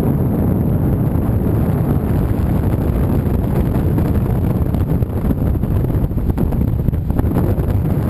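Wind from paraglider flight buffeting the microphone: a loud, steady, rumbling rush with no breaks.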